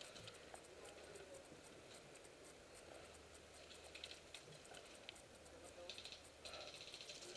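Near silence, with faint scattered ticks and a light rustle.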